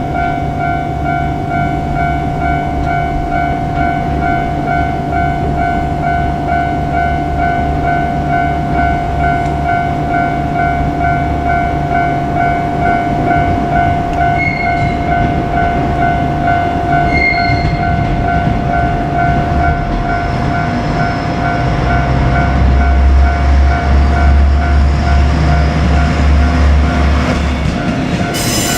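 Level-crossing warning bell ringing in a steady, evenly repeating pattern over the running of a KiHa 47 diesel railcar's engine. The engine grows louder about three-quarters of the way through as the railcar comes on. Two brief high tones sound about halfway, and a loud burst of noise comes right at the end as the train reaches the crossing.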